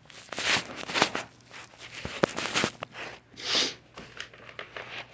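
Hair and carpet fibres being cut and torn off a clogged Shark vacuum roller with a knife: a run of short scraping, crackling strokes, with one longer hiss about three and a half seconds in.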